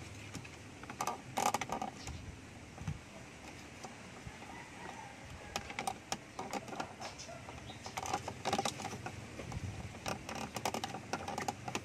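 Plastic air-con vent louver of a Mitsubishi Lancer dashboard creaking and clicking in scattered bursts as a thumb pushes on the slats, working a clip and pins into place to link the vanes.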